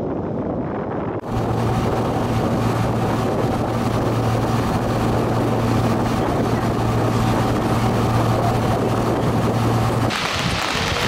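Boat engine running at a steady hum, with water rushing past the hull, taking over from a quieter wind rush about a second in. Near the end the engine cuts out and a broad hissing rush of water from a dam's discharge takes over.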